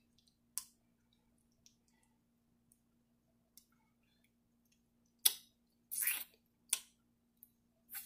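Wet lip smacks and finger-sucking sounds while eating chicken by hand: one short smack about half a second in, then a cluster of louder smacks in the last three seconds.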